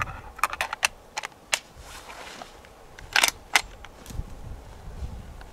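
A dozen or so sharp, short clicks and snaps at irregular spacing, with a brief rustle about two seconds in.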